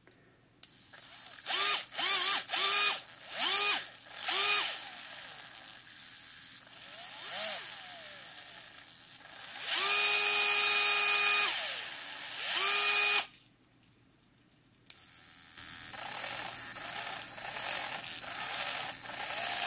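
The brushed DC motor of a DeWalt 8V gyroscopic screwdriver, opened up on the bench, whirring in a string of short spurts that spin up and spin down. It then makes one steady run of nearly two seconds about ten seconds in. Its pitch follows the motor speed, which the tool varies through its servo-style speed control.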